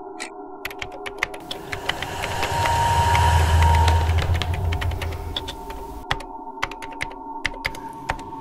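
Typing on a laptop keyboard: a quick, uneven run of key clicks over a steady low drone. A deep rumble swells up about two seconds in and fades away by about six seconds.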